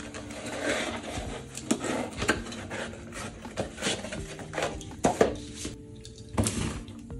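Hands handling a small corrugated cardboard box, tucking its lid flap shut and tapping and rubbing the cardboard in a run of short, sharp clicks and knocks. Soft background music plays faintly underneath.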